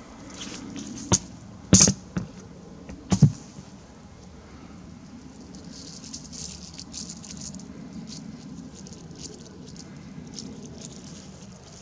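Last few Russian ruble coins tipped from a plastic canister and clinking into a galvanized metal bucket full of coins: three sharp clinks within the first three seconds or so. After them, a faint steady rustling patter.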